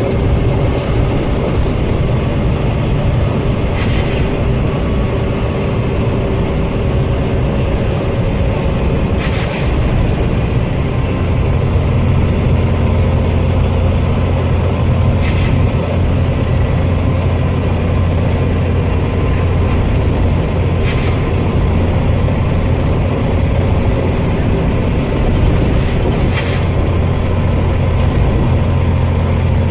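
Scania OmniCity bus running, its engine a steady low drone that grows fuller about twelve seconds in, broken five times by a short, sharp hiss of air about every five and a half seconds. This is the repeated loud 'sneezing' that the bus made from worn-out air tanks.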